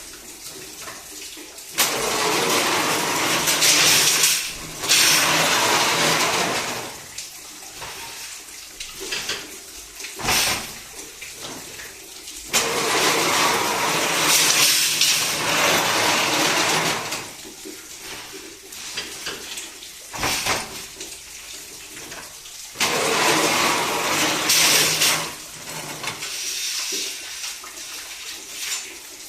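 Homemade sheet-metal bending brake at work: three stretches of loud noise, each a few seconds long and about ten seconds apart, with a single sharp knock between each pair.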